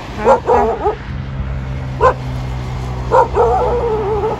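A dog barking: a quick run of barks in the first second, a single bark about two seconds in, then a bark near the end that draws out into a wavering whine.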